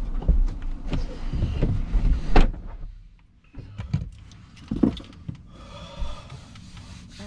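A Lamborghini's driver door being opened and shut, with a heavy thump about two and a half seconds in, over a low outdoor rumble. Then the sound drops to the quieter closed cabin, with a few light knocks and handling noises.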